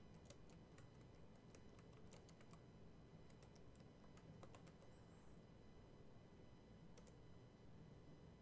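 Faint computer keyboard typing: a run of light key clicks over the first five seconds or so, then a single click about seven seconds in.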